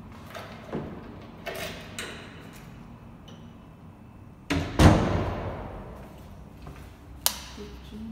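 Interior door being pushed open, with a loud thud about halfway through that rings on briefly in a tiled room. Lighter knocks and handling noise come before it, and a sharp click comes near the end.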